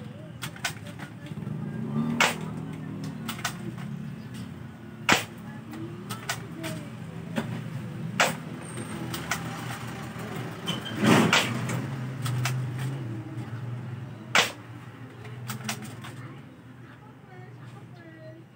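Spring-powered airsoft rifle shot repeatedly, a sharp snap roughly every three seconds, with smaller clicks of the gun being cocked between shots. A low background hum runs under most of it.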